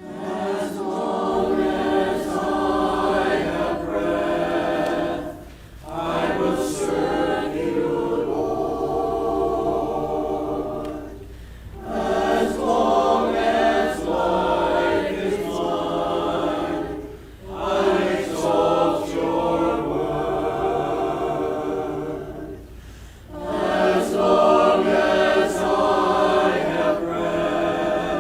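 Choir singing in long sung phrases of about five to six seconds each, with brief breaks between them.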